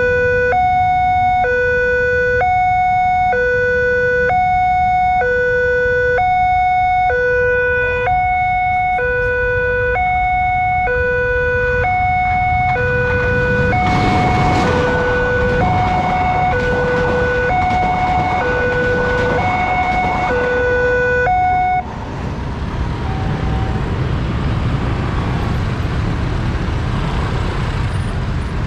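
Railway level-crossing alarm sounding an ambulance-like two-tone wail that switches between a low and a high pitch about every half second. About halfway through, a diesel locomotive passes over the crossing. The alarm cuts off suddenly about three quarters of the way in, leaving road traffic and motorcycles.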